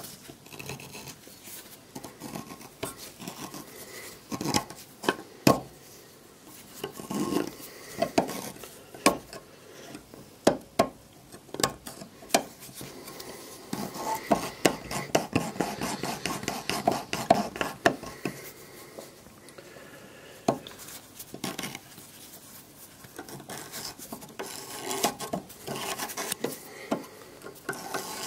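Metal tool prongs clicking, knocking and scraping against the nose plug of a WW1 German Dopp Zc/91 artillery shell fuse as it is worked at to unscrew it. There are irregular sharp clicks throughout, with longer spells of scraping in the middle.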